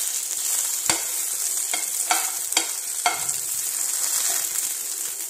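Green chillies frying in hot oil in a wide pan: a steady sizzle. A steel spoon turning them clicks and scrapes against the pan, about five times in the first three seconds.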